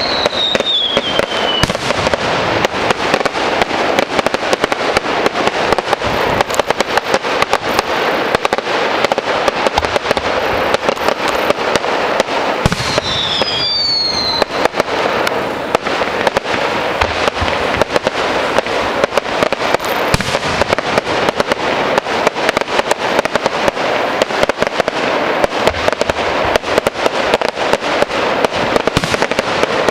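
Fireworks display with aerial shells bursting: a dense, continuous crackle of rapid pops. Whistles falling in pitch come at the start and again about 13 seconds in, just after a sharper bang.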